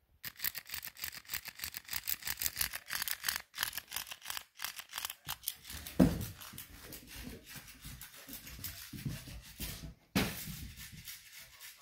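Mechanical flopping fish toy flapping in rapid, even strokes against a rug, then a looser run of rubbing and rustling. A loud thump comes about six seconds in, and another knock just after ten seconds.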